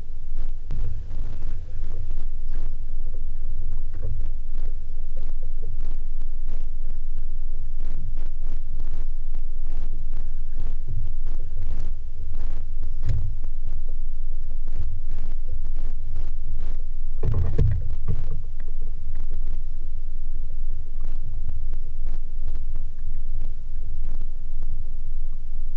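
Low, steady rumble of a small fishing boat under way at trolling speed, from its motor and hull. Scattered knocks come through it, with one louder thump about seventeen seconds in.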